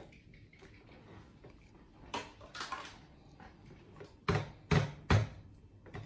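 Knocks and clatter of a refrigerator door and the things inside it being handled, ending in three sharp thumps in quick succession.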